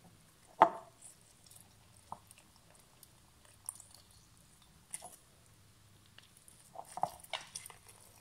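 A lemon half squeezed by hand over a small glass jar: scattered soft squishes, with a sharp knock about half a second in and a cluster of squelches near the end.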